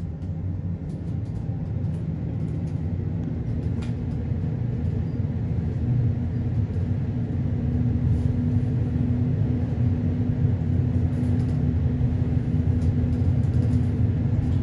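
Inside a high-speed passenger elevator car climbing its shaft: a steady low rumble that grows a little louder as the car goes up, with a steady low hum joining about halfway through.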